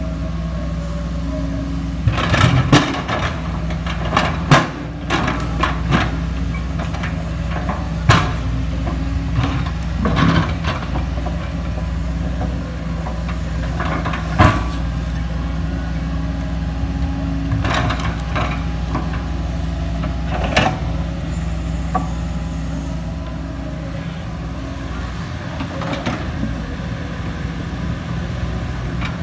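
Kobelco SK140HD excavator's diesel engine running steadily under hydraulic load, with about a dozen irregular clanks and knocks as the bucket works among river boulders, most of them in the first twenty seconds.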